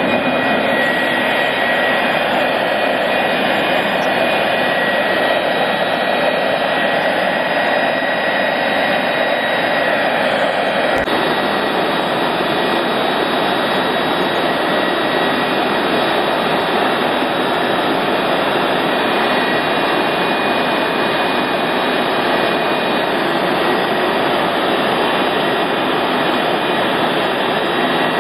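General Electric J79-11B turbojet running steadily on a test stand: a loud, even rush of noise with a few steady high whistling tones on top. There is one brief click about eleven seconds in.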